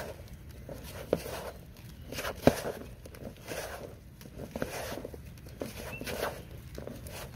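Hands kneading and squeezing a moist carp bait dough with corn kernels in a plastic bowl, giving irregular squelching and rustling. Two sharp knocks come about one and two and a half seconds in, the second the loudest.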